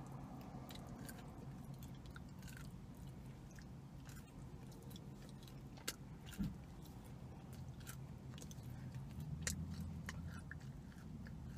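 Chewing and biting into a thin, crisp sesame seed cookie: faint crunches and small crackles, with a sharper bite about six seconds in.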